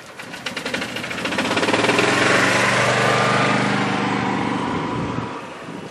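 A motor engine passing by, with a fast, even pulsing hum. It grows louder over the first two seconds, holds, and fades away by about five seconds in.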